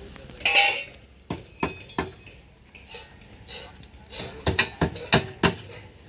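Irregular sharp metallic clinks and knocks, a dozen or so, loudest about half a second in and coming faster in the second half: metal tools striking steel column formwork and rebar.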